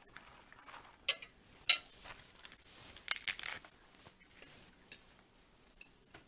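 Close-miked eating sounds: crunchy chewing, with a few sharp clicks of a fork against a plate, the loudest about a second and a half in.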